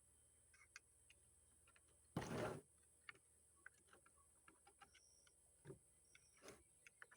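Faint scattered metal clicks and ticks from the parts of a Thompson gun being handled, with one short scrape about two seconds in, as the bolt handle is slid along the receiver to line it up for removal.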